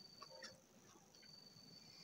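Near silence: a thin, steady high whistle-like tone breaks off about half a second in and returns after about a second, with a couple of faint soft clicks.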